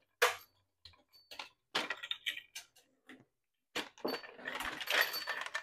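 Clicks, knocks and clattering as grow-light fixtures are unhooked and lifted off a metal wire shelving unit, with some light metallic jingling. Scattered single knocks come first, and the handling grows busier about four seconds in.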